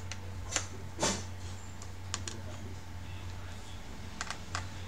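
Scattered small clicks and taps of a precision screwdriver working on an open laptop's screws and parts, the loudest about a second in, over a steady low hum.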